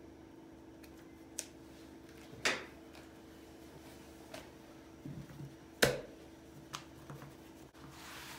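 Kitchen scissors and rolled yufka pastry sheets handled on a silicone mat: a few scattered snips and clicks, with one louder thump about six seconds in. Near the end comes a soft rustle as a thin pastry sheet is unfolded, over a faint steady hum.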